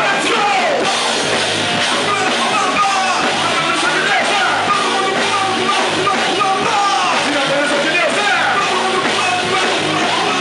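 Loud live praise music with a fast rock beat, with voices singing and shouting along.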